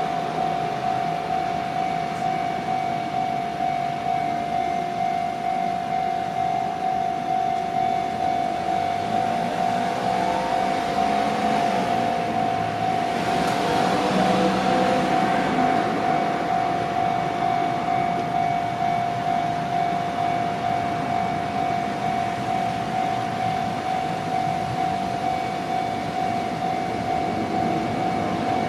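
Japanese railway level-crossing alarm sounding, its electronic bell tone repeating in a fast, even rhythm. About halfway through, the noise of something passing swells and fades under it.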